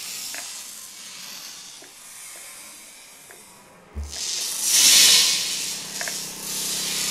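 Live electronic noise music: a high hiss fades away, then a low thump about four seconds in sets off a loud surging hiss over a steady low drone.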